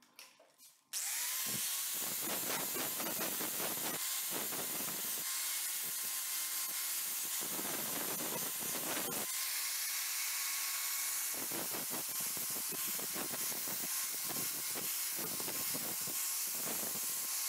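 Electric angle grinder with a sanding disc switched on about a second in, its motor whine rising to speed, then sanding a workpiece clamped in a vise, the scraping noise coming and going as the disc is pressed on and eased off. Around the middle the whine sags briefly under load and picks up again.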